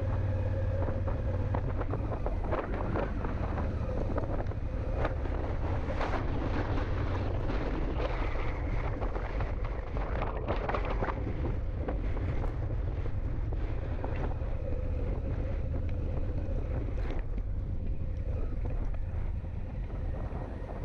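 Honda Africa Twin parallel-twin engine running steadily at low speed as the motorcycle rides a dirt double track, with wind noise on the microphone. A handful of short knocks from bumps in the track stand out, about two and a half, five, six, ten and seventeen seconds in.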